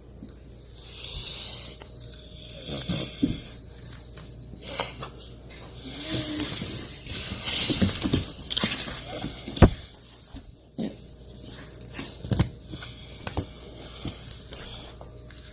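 Snoring: irregular rasping breaths, with a few sharp knocks, the loudest about ten seconds in.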